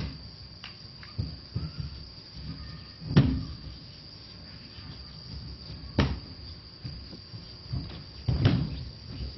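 Several dull thuds of aikido partners being thrown and falling onto the mat, the loudest about three seconds in, others at about six and eight and a half seconds, with lighter shuffling between. Crickets chirp steadily underneath.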